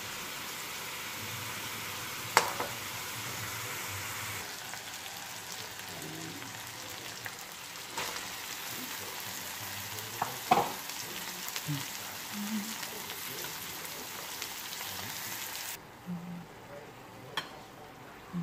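Meat and julienned carrots sizzling in an aluminium wok as a stir-fry, with a steady frying hiss and a spatula knocking and scraping against the pan a few times. The sizzle drops off suddenly near the end.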